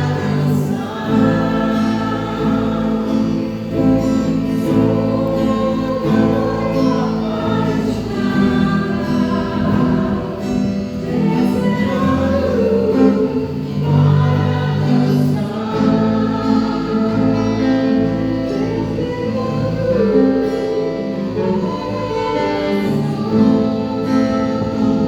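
A group of voices singing a gospel worship song together, with guitar accompaniment.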